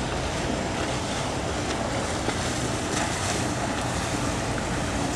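Outboard motor of a small center-console boat running steadily as it passes on the river, with water washing and wind buffeting the microphone.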